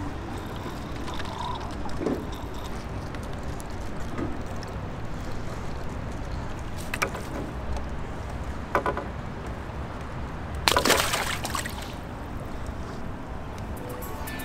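Water splashing and sloshing as a small carp is dropped into a keepnet at the water's edge. A louder splash lasting about a second comes a few seconds before the end, over a steady low background rumble.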